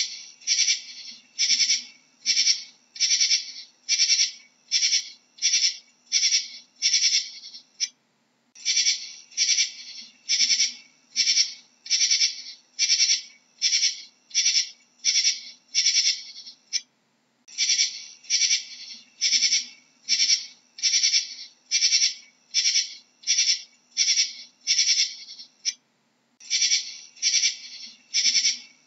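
Katydid calling: a steady series of short, harsh, high-pitched chirps, about three every two seconds, in long runs broken by a brief pause about every nine seconds.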